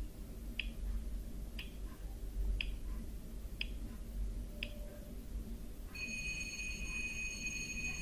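Quiz countdown-timer sound effect: a clock ticks five times, once a second. About six seconds in, a steady alarm-clock ring starts, marking that time is up.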